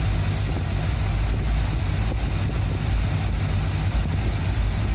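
1981 Corvette's 350 V8 idling steadily at a fast idle of about 1,000 rpm while the carburetor's idle speed screw is backed off; no change in the idle can be heard.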